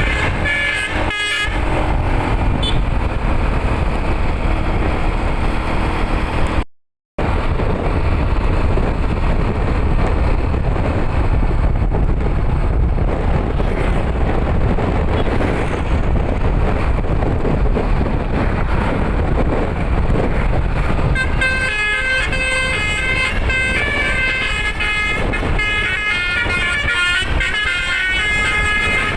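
A bus's telolet musical horn plays a quick stepping multi-tone tune at the start and again through the last eight seconds or so. In between there is steady vehicle noise, cut by a brief dropout about seven seconds in.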